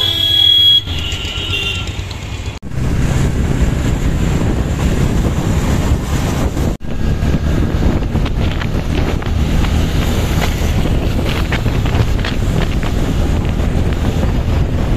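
Heavy wind rumble on the microphone of a moving motorcycle, with road and traffic noise mixed in. A high steady tone sounds in the first two seconds, and the sound cuts out for an instant twice, about two and a half and seven seconds in.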